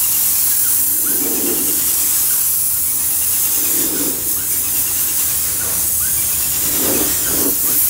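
Harbor Freight paint sprayer's gun spraying a fine fan of liquid onto a truck's door panel: a steady, high hiss of spray striking the paint.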